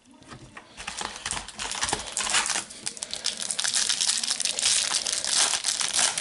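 Foil wrapper of a Topps Match Attax trading-card packet crinkling and tearing as it is handled and opened. The sound starts just after the beginning and is busiest and loudest in the second half.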